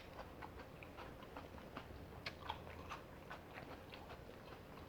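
A person chewing food, with soft mouth clicks and smacks scattered throughout.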